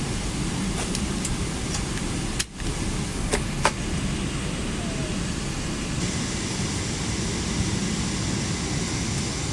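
Steady cabin noise of an airliner in flight: the even rush of engines and airflow heard from inside the cabin, with a few faint clicks between two and four seconds in.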